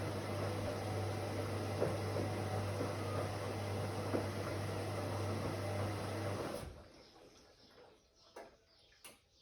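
Whirlpool AWOC 8283 washing machine running with a steady motor hum and the churn of the drum, which stops abruptly about two-thirds of the way in. A quiet pause follows, with a couple of faint clicks.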